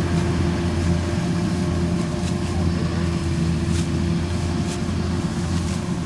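Kubota DC93 combine harvester with a DC95 header running steadily while it cuts rice, its diesel engine giving a constant low hum with a steady higher drone above it.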